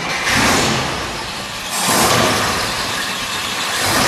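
1948 Chrysler Town and Country's Spitfire 323-cubic-inch inline-eight engine running, with its sound rising and falling about three times.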